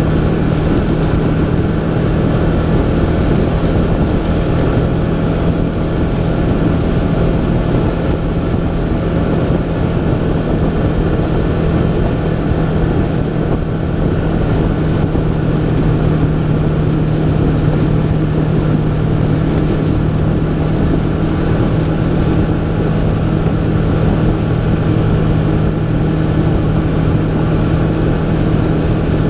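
Off-road utility vehicle driving at a steady speed on a gravel trail: the engine holds a constant drone under an even rush of tyre and wind noise.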